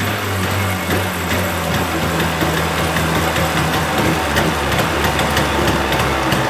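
A 1980 Chrysler 45 hp two-stroke outboard motor running steadily at idle, with faint rapid ticking from about four seconds in.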